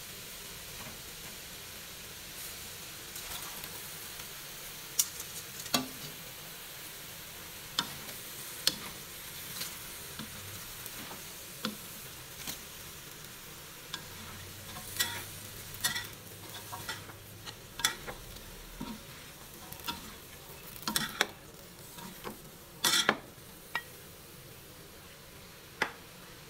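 Vegetables stir-frying in a wok: a steady sizzle under scattered clinks and scrapes of spatulas against the pan, coming thicker in the second half.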